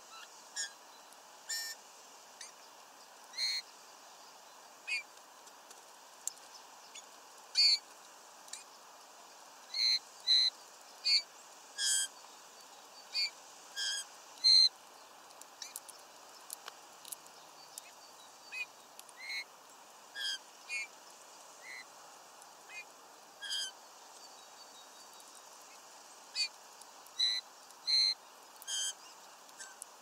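Small birds giving short, sharp calls at irregular intervals, about thirty in all. Some come singly and some in quick pairs, and the loudest fall between ten and fifteen seconds in and again near the end.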